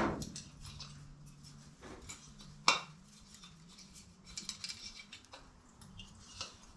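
Small metal camp-cooking gear being handled: light clinks and rattles, with a knock at the start and a sharp, louder metallic clack about two and a half seconds in.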